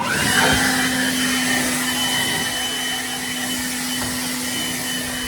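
A small electric fan motor of the vacuum-cleaner kind, switched on and running steadily: a rush of air with a steady hum and a thin high whine.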